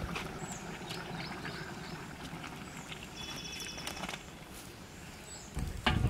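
Birds chirping over a low outdoor background, with scattered light knocks. Near the end come a few heavy thumps as a large metal cooking pot is handled and set down.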